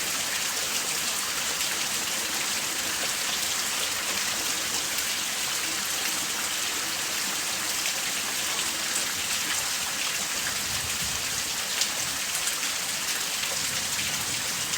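Steady rain: an even hiss of falling drops with fine scattered pattering.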